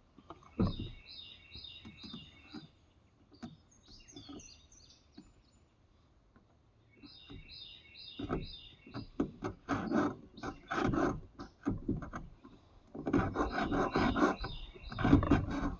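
Chainsaw chain being filed by hand: short rasping strokes of the file across the cutters, several a second, coming in bursts from about halfway through and loudest near the end. Before that a bird sings a repeated chirping phrase.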